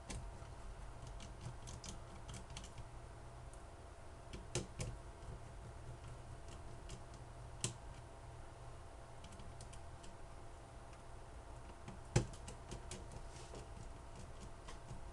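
Scattered small clicks and ticks of a Phillips screwdriver working tiny screws out of a phone's plastic housing, with a sharper click about twelve seconds in. A faint steady low hum runs underneath.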